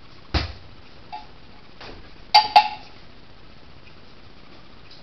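A ball bouncing: one heavy thud about a third of a second in, a couple of faint knocks, then two sharp ringing bounces in quick succession about two and a half seconds in.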